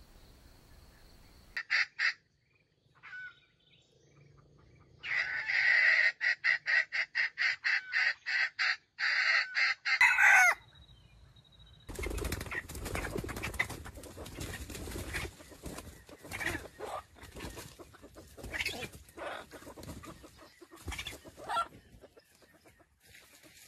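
Junglefowl clucking: two short calls, then a fast run of clucks for about five seconds ending in one drawn-out, falling call, like a hen's cackle. After that comes a long stretch of crackling, rustling noise.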